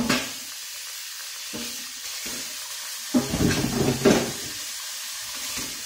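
Kitchen tap running steadily into a stainless-steel sink as raw chicken is washed by hand, with bumps of handling and a louder stretch of splashing and clatter about three seconds in.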